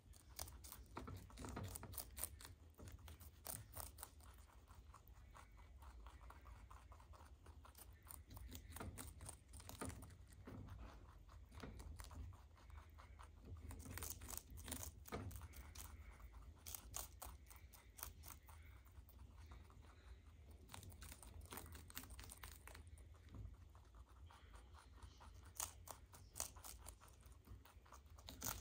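Baby rabbits chewing cabbage leaves: faint crunching and tearing bites in quick runs, over a low steady hum.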